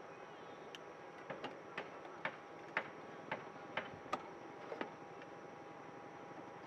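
Small sharp metallic clicks and clinks, about ten in three and a half seconds at uneven spacing, as a metal hurricane lantern is lit with a wand lighter and its glass globe and wire guard are handled. A faint steady high tone runs underneath.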